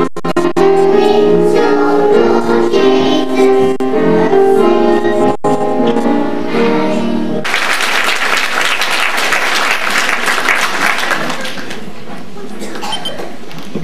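Children's choir singing a song on stage, with the sound briefly cutting out a few times; the song stops about seven and a half seconds in and audience applause breaks out, dying down over the last few seconds.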